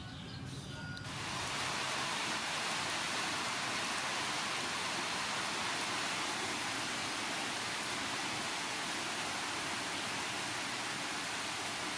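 Steady rain falling on leaves: an even, unbroken hiss that comes in about a second in and holds level.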